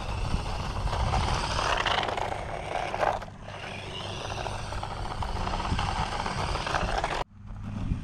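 Small 1:18-scale RC monster truck driving on concrete: its little 260 electric motor whines, rising and falling with the throttle, over the hiss and scrape of its tyres. The sound breaks off sharply near the end and then comes back.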